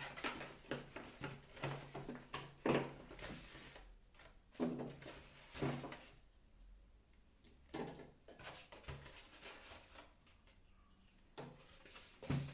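Scattered knocks, clicks and rustling from handling the food chopper's parts and packaging, irregular with short pauses between.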